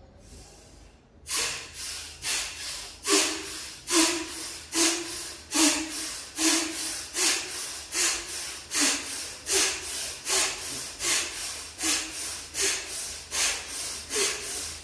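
Bhastrika pranayama (bellows breath): rapid, forceful breathing through the nose. Each stroke is a loud rush of air followed by a softer one, about five breaths every four seconds, in a steady rhythm that starts about a second in.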